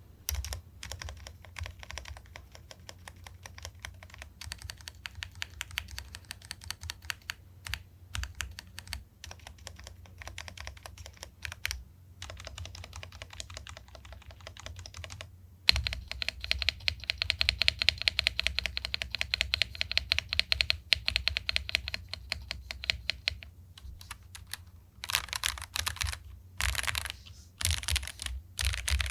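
Typing sound test on a Jedel WKL-100 75% mechanical keyboard with linear switches: a steady stream of key clacks. The clacks get clearly louder a little over halfway through, and a few separate flurries of keystrokes come near the end.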